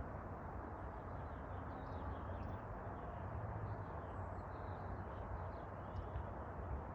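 Steady noise, like the rush of a fan or air unit, over a low hum, with faint bird chirps scattered through it.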